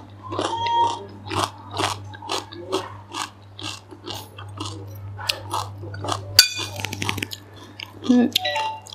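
Close-up eating sounds of a person chewing prawns and lettuce: wet smacking and crunching, about two to three chews a second. About six and a half seconds in comes one sharp, briefly ringing clink.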